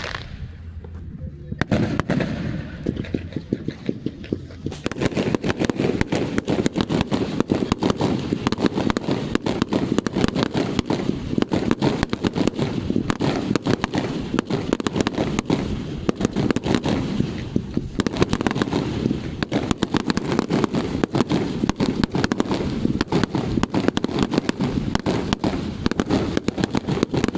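Fireworks: a few separate bangs, then from about five seconds in a dense, continuous crackling barrage.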